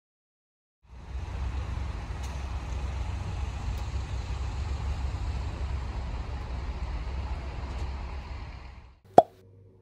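A vehicle's steady low rumble and road noise starts about a second in and stops near the end, then a single sharp click.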